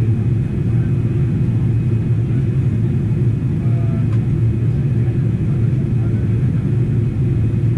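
Boeing 777-300ER cabin noise heard from a window seat: a steady, low rumble of the GE90 engines and airflow during the descent on approach.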